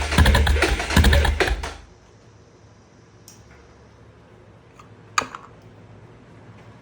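Electric starter cranking the Suzuki DR650's single-cylinder engine, a fast clatter over a low hum, which stops a little under two seconds in without the engine catching: a no-start. Then low background with two short clicks.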